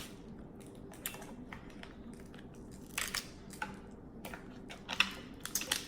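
Snow crab leg shells cracking and crunching as they are broken open, in irregular sharp snaps and crackles, the loudest snap about five seconds in.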